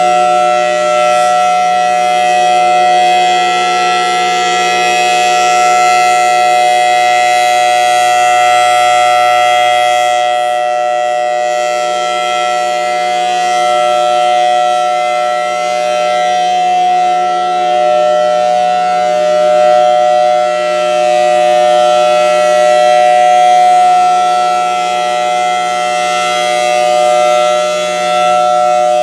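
Federal Signal Thunderbolt 1003 civil defense siren sounding the steady Alert signal for a monthly test: a loud chord of steady tones that holds its pitch, its loudness swelling and fading gently.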